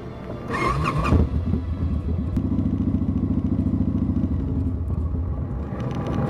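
Victory motorcycle's V-twin engine running under way, growing louder about a second in and then holding a steady low note.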